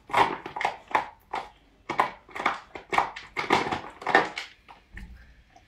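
Golden retriever chewing and biting a small plastic bottle, working at its screw cap to get it open. It makes a dozen or so irregular crunches and clicks of teeth on plastic, which thin out near the end.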